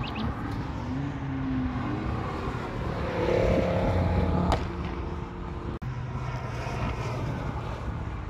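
Track-day cars running past at speed on a race circuit, with several engines sounding at once. The sound is loudest about halfway through and breaks off abruptly there, then again a little later.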